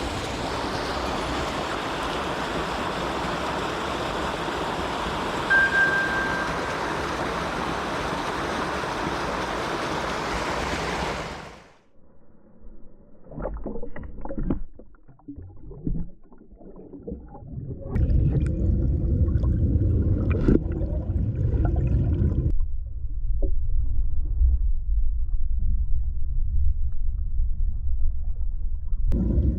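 Mountain stream current rushing, an even full hiss; about twelve seconds in it cuts to muffled underwater sound of the current, with a few scattered knocks and then a loud steady low rumble from about eighteen seconds on.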